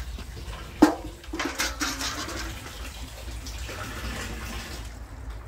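Water from a bucketful thrown on a shed roof running through a plastic gutter and downpipe and splashing onto a wheelie-bin lid. A sharp knock comes about a second in, then a burst of splashing that settles into a steady rush of water.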